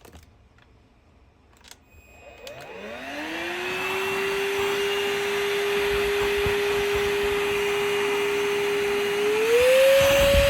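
Bossman cordless vacuum cleaner's motor: after a few faint clicks it is switched on and spins up, then runs at a steady high whine. Near the end it steps up to a higher speed.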